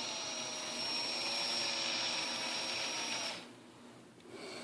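Small power drill running steadily with a high whine as it bores through a thumbnail to release blood trapped underneath; it stops about three seconds in.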